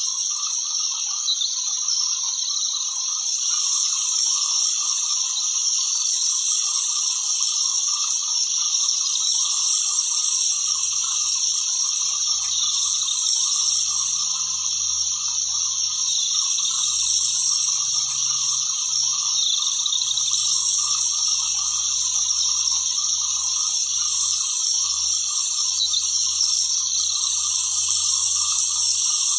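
Light rain falling in a steady, even hiss.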